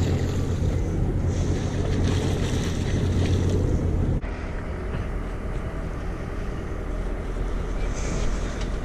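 Boat engine idling with a steady low hum, under wind noise on the microphone and water. About four seconds in the sound cuts abruptly to a weaker hum and hiss.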